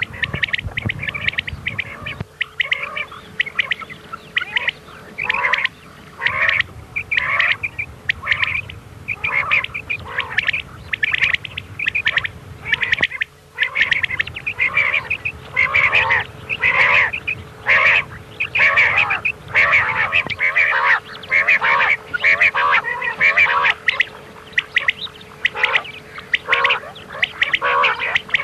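Recorded common quail calls, short chirping calls repeated over and over in quick runs with brief gaps, played as a lure for quail hunting. A faint steady hum runs underneath.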